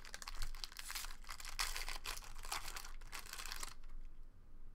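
Foil wrapper of a 2013 Bowman Chrome Jumbo baseball card pack crinkling and tearing as it is pulled open by hand. It is a dense run of crackles that stops about three and a half seconds in.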